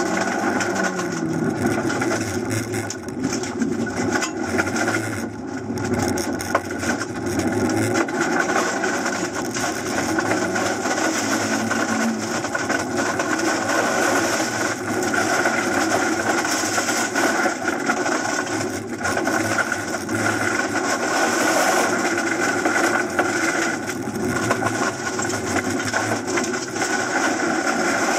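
Suzuki Swift Sport ZC33S's 1.4-litre turbocharged four-cylinder engine driven hard, heard from inside the cabin, its note climbing and dropping again and again with gear changes and lifts. Loose gravel hisses and rattles under the car throughout.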